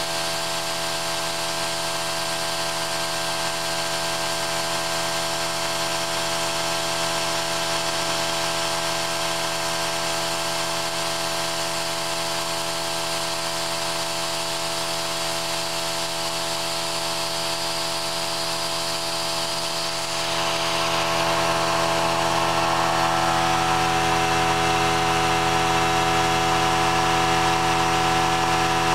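Small milling machine running steadily with many constant tones while an end mill cuts vertical slots in a brushed 540 motor armature. About two-thirds of the way through the sound gets louder and brighter and stays that way.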